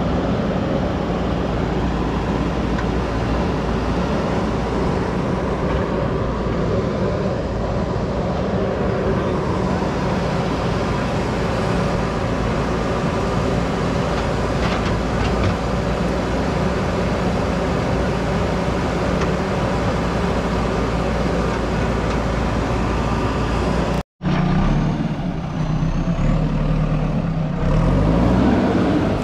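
JCB 3DX backhoe loader's diesel engine running steadily while the machine works. After a short break about 24 seconds in it is heard closer, its engine note rising and falling as the loader moves.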